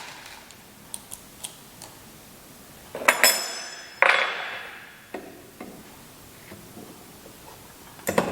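Metal clinks and clanks from handling tools or hardware at a workbench. A few light clicks, then two louder clanks a second apart about three seconds in, each ringing briefly, then a few soft knocks.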